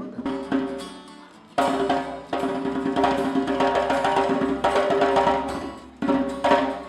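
A band playing unplugged during a sound check: strummed acoustic strings with hand percussion. It plays in stop-start phrases, with a short gap about a second in, the full band coming in again, dying away, and restarting near the end.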